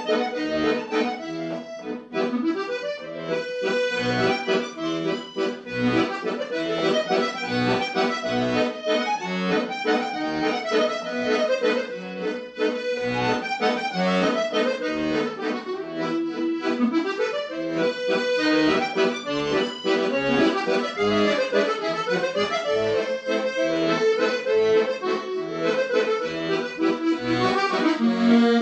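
Red Hohner piano accordion played solo: a tune on the right-hand keyboard over bass notes that pulse regularly underneath from the left-hand bass side.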